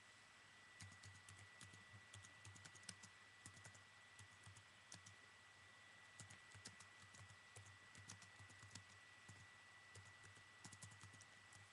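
Faint typing on a computer keyboard: several runs of quick key clicks with short pauses between them, over a faint steady electrical whine.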